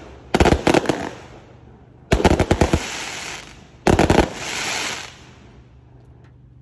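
Fireworks cake firing three volleys of rapid-fire bangs, each trailing off into crackling from the aerial effects. The sound fades out about five seconds in as the cake finishes.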